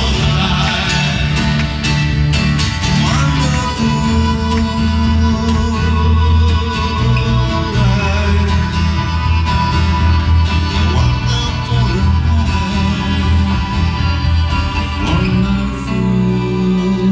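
Live acoustic band of acoustic guitars, accordion and double bass playing an instrumental passage, with strummed guitar over steady bass notes and a long held tone.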